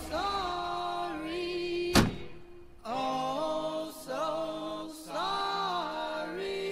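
Music of slow, held choir-like chords moving up and down in steps, with a single sharp knock about two seconds in.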